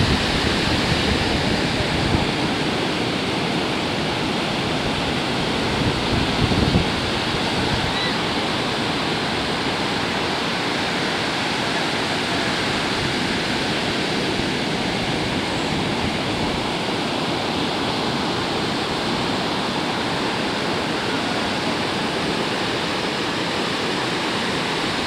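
Steady rush of ocean surf on the beach, with low gusts of wind on the microphone in the first two seconds and again about six seconds in.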